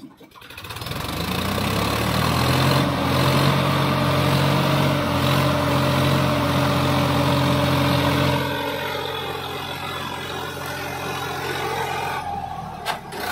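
Swaraj 963 FE 4WD tractor's three-cylinder diesel engine revving up and pulling under load in deep sand, holding steady revs, then easing off about two-thirds of the way through. A sharp click comes near the end.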